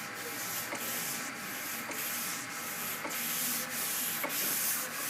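Sandpaper on a Curvecaster flexible sanding board rubbing back and forth over a primed body panel in even strokes, a little under two a second. This is block sanding of the primer, taking down the high spots.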